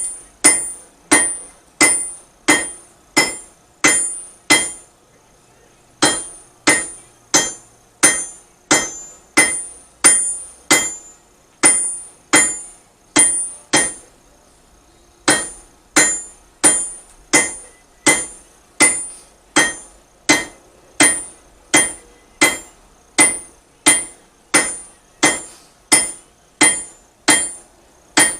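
Blacksmith's hand hammer striking hot iron on an anvil in a steady rhythm, about three blows every two seconds, each with a bright high anvil ring. The hammering breaks off twice for a second or so, about five seconds in and again near the middle, then resumes.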